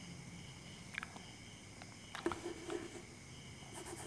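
Quiet room tone with a faint steady high hum and a few soft clicks and taps, most of them between two and three seconds in.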